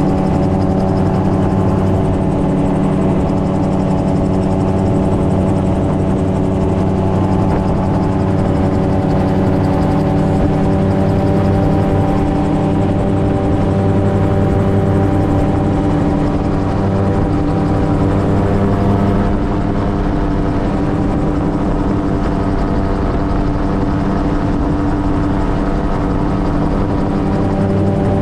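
MTOsport gyrocopter in level cruise: its engine and propeller run at a steady drone that holds one even pitch throughout.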